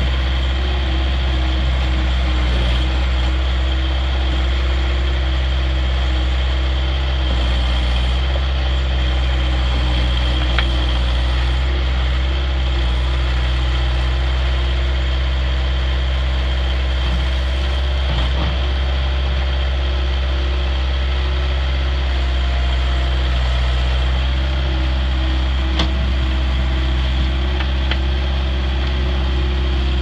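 Bobcat S175 skid steer loader's diesel engine running steadily, with a steady high whine over the low engine note.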